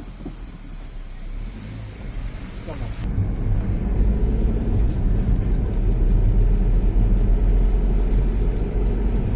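Car on the move: a low engine and road rumble that grows sharply louder about three seconds in and then holds steady.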